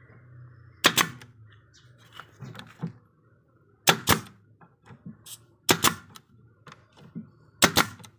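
Brad nailer firing nails into wooden molding: four sharp shots about two seconds apart, each a quick double crack.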